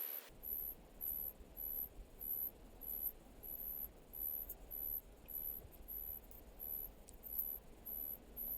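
An insect, cricket-like, chirping in a steady rhythm: a short, very high-pitched chirp repeated a little under twice a second over faint background noise.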